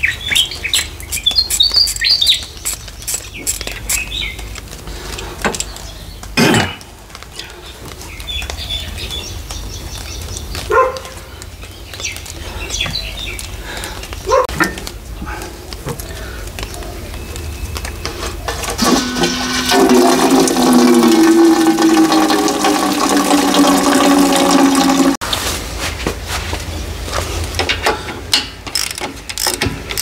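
Scattered clinks and clicks of hand tools working loose the alternator mounting on a Case 580 backhoe engine, with a few bird chirps. In the second half a loud, steady hum of several tones comes in for about six seconds and cuts off suddenly.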